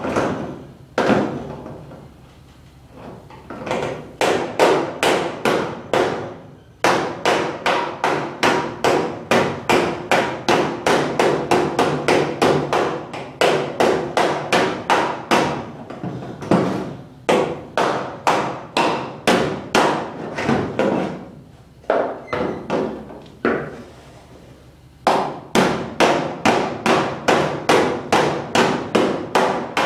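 Body hammer tapping a welded-in sheet-metal patch panel against a dolly held behind it: long runs of sharp, ringing metal strikes, about three a second, with a few short pauses. The panel edge is being beaten down tight against the car body.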